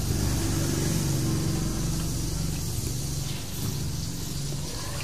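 A motor vehicle's engine running nearby, a low steady hum that is loudest in the first two to three seconds and then eases off.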